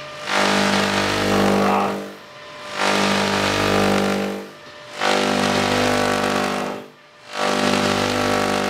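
Handheld Tesla coil (Tesla gun) firing spark streamers into the air with a loud, harsh electric buzz. It comes in four bursts of about two seconds each, with short breaks between them.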